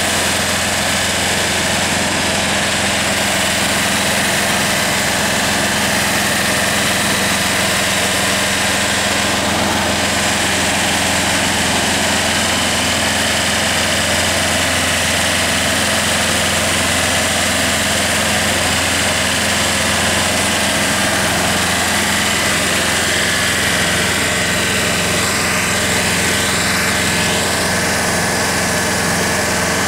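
Sewer jetter's 20 hp engine-driven high-pressure pump running steadily, working at about 170 bar, with the constant hiss of water jetting from the cleaning nozzle through a pipe.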